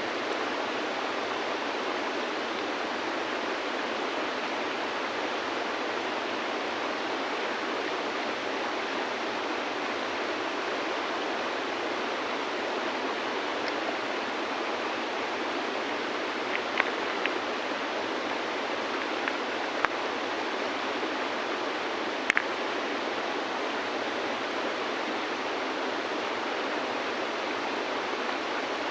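River water flowing steadily, with a handful of sharp clicks of stones being set against one another, starting a little past halfway.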